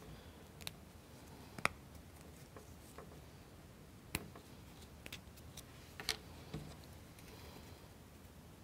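A handful of faint, sharp clicks and taps, several seconds apart, as small plywood washers are pushed onto the ends of a wooden kit shaft.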